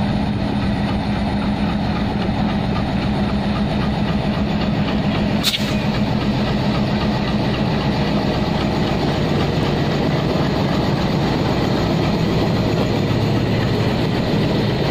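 Bangladesh Railway diesel-electric locomotive 6526 (BED-30) running past close by at the head of a passenger train, its engine giving a steady heavy drone. Near the end the green passenger coaches follow with the rumble and clatter of their wheels on the rails. There is one short sharp click about five and a half seconds in.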